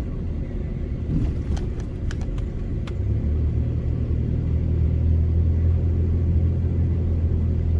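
Pickup truck driving, heard from inside the cab: engine and road rumble, with a deeper, louder engine drone setting in about three seconds in and holding steady.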